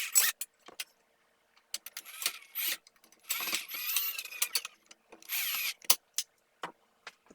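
Power drill run in short bursts, about four trigger pulls of under a second each, the motor speeding up and slowing down with each pull.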